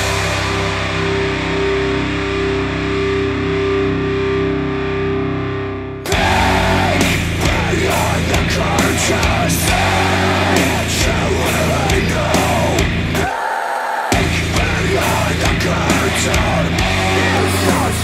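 Hard rock music with electric guitar played back through hi-fi bookshelf speakers. It opens with about six seconds of held chords with the highs cut off, then the full band comes in around six seconds in, and the bass and drums drop out briefly near the end.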